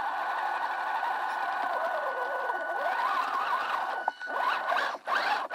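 Electric motor and gearbox of a WLtoys 10428 RC truck whining as it drives over a dirt trail, the pitch wandering up and down with the throttle. The sound drops out briefly twice near the end.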